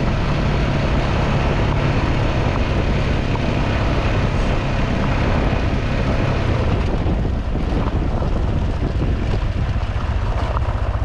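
Motorcycle engine running while riding on a gravel road, with wind and tyre noise over it. About seven seconds in the engine note drops and the noise eases as the bike slows.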